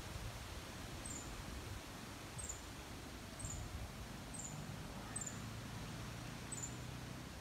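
A small bird repeats a high, thin two-note chirp about once a second over a low outdoor rumble.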